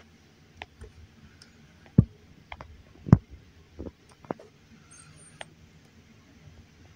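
Handling noise: scattered light clicks and knocks, with two louder dull thumps about two and three seconds in.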